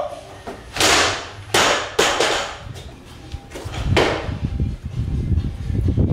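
Barbell snatch with bumper plates: a few sharp, hissing bursts in the first couple of seconds, then a sharp hit about four seconds in as the lifter drops into the overhead squat catch, followed by a low rumble.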